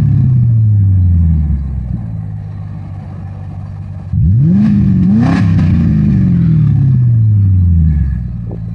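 A 1993 Lincoln Mark VIII's 4.6-litre DOHC V8 being free-revved while parked, heard through its dual-tip exhaust: the revs fall slowly back to idle at the start, then about four seconds in it is blipped up sharply twice and the pitch falls slowly back to idle near the end.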